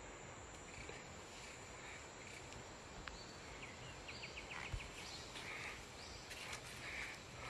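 Rainforest ambience: a steady hiss of insects with faint scattered bird calls, and a quick run of about six ticking notes a little past four seconds in.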